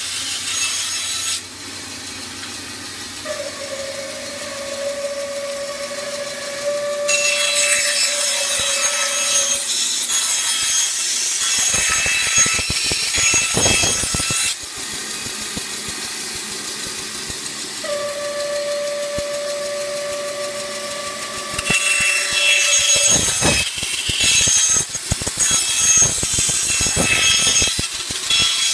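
Bandsaw running and ripping thin strips from a wooden board, in two cuts. Each cut is a loud hissing rasp that ends in a clatter.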